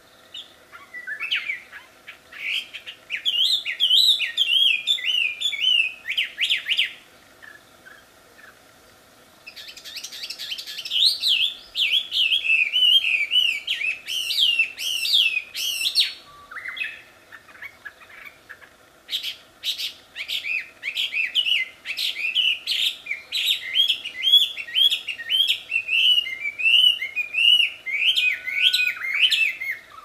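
Chinese hwamei (wambi) singing a loud, melodious song of rapid, varied whistled notes that rise and fall. It comes in three long phrases with short pauses between them.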